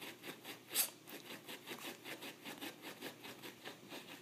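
A small dog digging with its front paws at carpet against a box. Its claws scratch in quick repeated strokes, about three or four a second, with one louder stroke about a second in.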